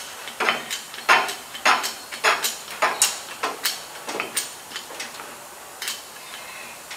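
Hand pump of a porta-power hydraulic body jack being worked stroke by stroke, a run of sharp clicks roughly twice a second, as the ram pushes a car's frame rail outward.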